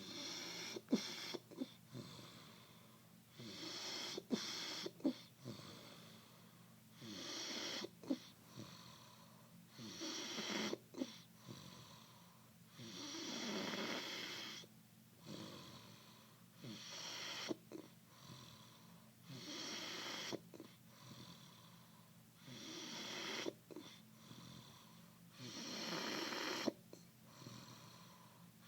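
Slow, regular snoring: one hissing breath about every three seconds, with short clicks and snuffles between the breaths.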